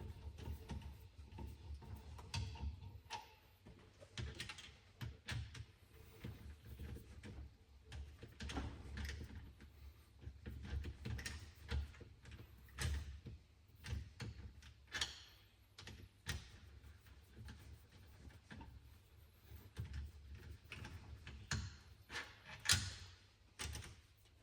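Irregular clicks, taps and clinks of hand tools and metal engine parts being handled during an engine bottom-end teardown, with one louder knock near the end.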